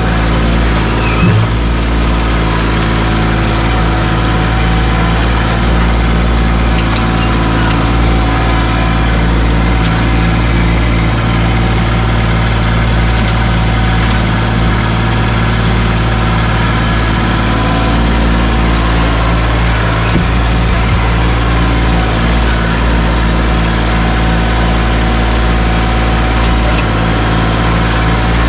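Kubota LX2610 compact tractor's diesel engine running at a steady speed as the loader and grapple work.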